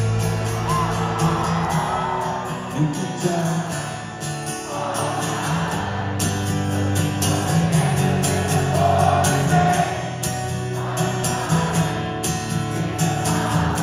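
A rock band playing live, recorded from the crowd: acoustic guitar and keyboard with singing, the sound carrying the open, slightly distant quality of a concert heard from the audience.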